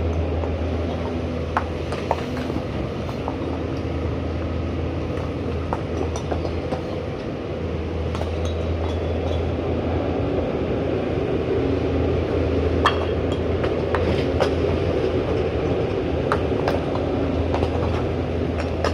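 Pindad excavator running steadily in a low drone, its hydraulics working the boom and bucket, with scattered sharp clinks and knocks of stones being handled.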